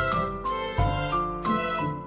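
Background music: a gentle instrumental track with a steady beat under sustained melodic notes.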